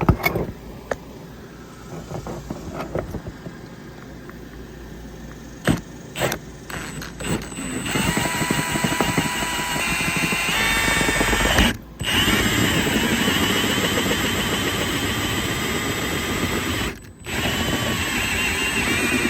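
Power drill cutting through the trailer's wall: a few knocks and clicks at first, then from about eight seconds in the drill runs steadily under load with a whining tone. It stops briefly twice.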